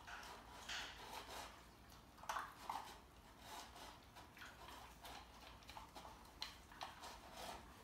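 Great Dane puppy eating the last pieces of dry kibble from a small bowl: faint, irregular crunching and clicking as it chews and noses the bowl.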